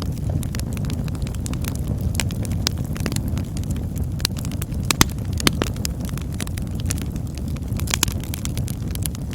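Campfire burning: a steady low rumble with frequent sharp crackles and snaps, and two louder pops about halfway through.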